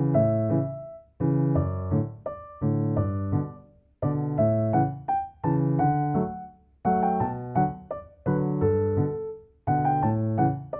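Background piano music: gentle chords struck and left to fade, in short phrases with brief pauses between them.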